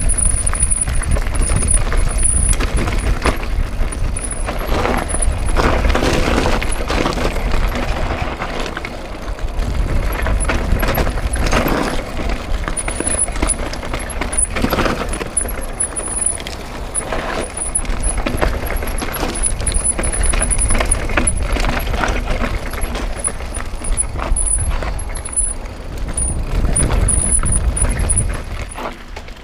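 Mountain bike riding fast down a rough dirt and rock trail: wind buffeting the camera's microphone, with tyres rolling over loose stones and the bike knocking and rattling over bumps.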